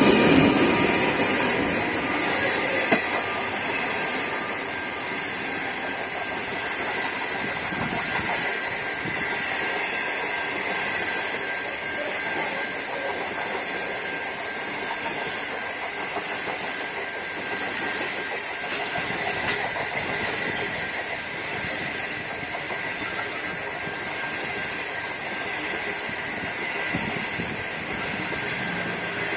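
Stainless-steel passenger carriages rolling past at speed on the near track, a steady rail rumble with a thin high tone running over it. It is loudest in the first few seconds, as the train's diesel locomotive draws away, then settles to an even level.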